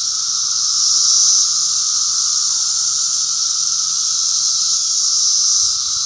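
Dense chorus of Brood X periodical cicadas, a loud, steady high buzz. Under it are the lower 'pharaoh' calls of the 17-year cicada, Magicicada septendecim, which drop in pitch about two and a half seconds in and again near the end.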